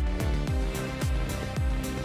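Background music with a steady beat: deep, falling kick drums about twice a second, with sharp hi-hat-like ticks above.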